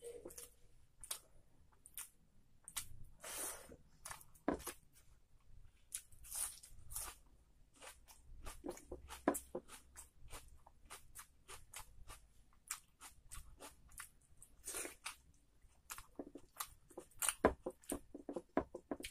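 Close-miked eating: irregular crunchy bites and chewing, with sharp crackles and a few longer squishy smears, like fingers working rice and curry.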